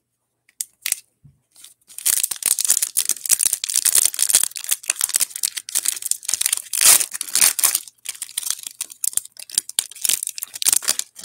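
Shiny foil wrapper of a Panini NBA Hoops trading-card pack being torn open and crinkled by hand: a dense crackling rustle that starts about two seconds in, after a few light clicks.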